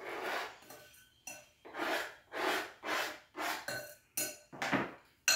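Kitchen knife chopping fresh parsley on a cutting board, about two crunchy strokes a second.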